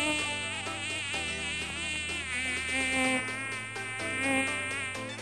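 Mosquito's high whining buzz, its pitch wavering slightly throughout, over a low steady hum.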